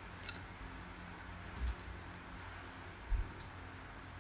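Two computer mouse clicks about a second and a half apart, over a faint steady hum.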